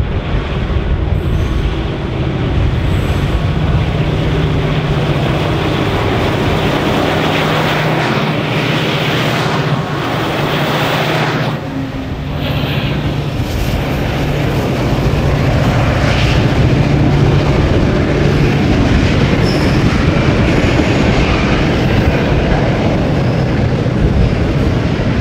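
Three EMD-powered 81 class diesel-electric locomotives under load on a climb, their engines giving a steady drone, with the loaded container wagons rolling past behind them.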